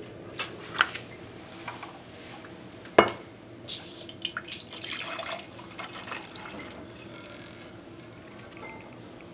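Stainless steel saucepan clinking as it is handled, with one sharp knock about three seconds in. Then warm sugar syrup pours steadily from the pan into a glass measuring jug.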